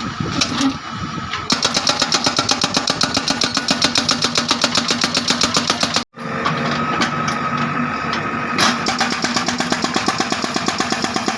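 Hydraulic breaker on a JCB backhoe loader hammering in a fast, even train of blows, about ten a second, over the backhoe's running diesel engine. The hammering starts about a second and a half in, and the sound cuts out for an instant near the middle before the hammering resumes.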